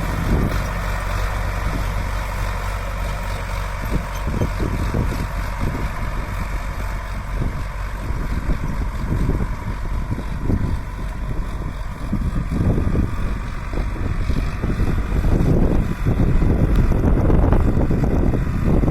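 Sonalika DI 750 RX Sikander tractor's four-cylinder diesel engine running steadily, getting louder about fifteen seconds in.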